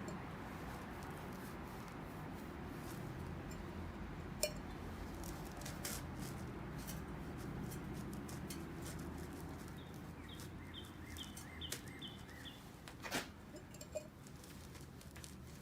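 Low steady background noise with a few sharp clicks of handling, and a quick run of about eight short, high chirps or squeaks starting about ten seconds in.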